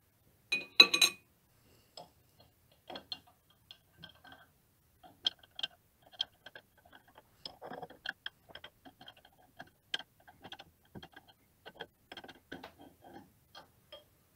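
Rusty steel plane irons clinking against a glass bottle and a ceramic plate as they are taken out of a vinegar rust bath. A cluster of bright, ringing clinks about a second in is the loudest part, followed by scattered light clicks and rattles.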